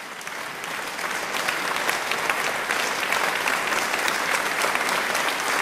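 Applause from many people clapping, swelling up over the first second or so and then holding steady.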